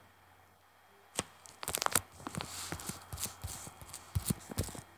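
Irregular crackling and rustling: a quick, uneven run of sharp clicks and crinkles that starts about a second in.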